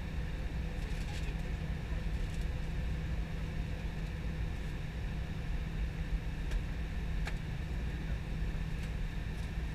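Steady cabin noise inside an Airbus A320 airliner on its arrival descent: a low, even drone of engines and rushing air, with a few faint ticks.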